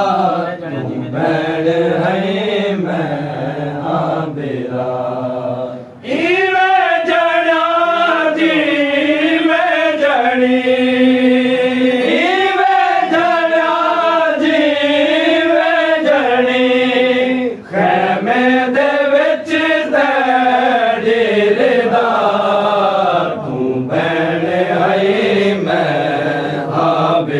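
Men chanting a noha, a Muharram lament, in a slow melody of long, wavering held notes. It breaks off briefly about six seconds in and again past the middle.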